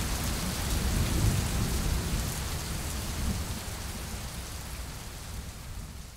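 Rain falling steadily, with a deep rumble of thunder about a second in; the sound fades out toward the end.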